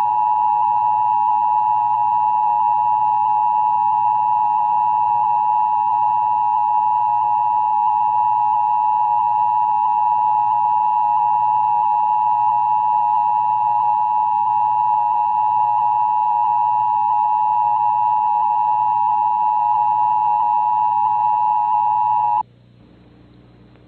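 Emergency Broadcast System attention signal: a loud, steady two-tone alarm of about 853 and 960 Hz sounded together. It is held unchanged and cuts off suddenly near the end, leaving faint hiss.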